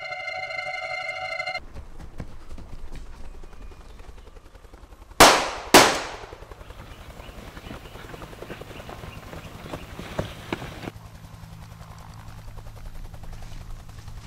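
A steady electronic tone for the first second and a half gives way to the low, rapid chop of a helicopter's rotor. Two loud gunshots come about half a second apart about five seconds in, and a few fainter shots follow around ten seconds.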